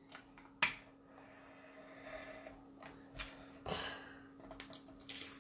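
Faint handling sounds of a metal cutting ruler, craft knife and paper on a cutting mat: a sharp tap just under a second in, a short scratchy rustle around the middle and a knock a little later, over a steady low hum.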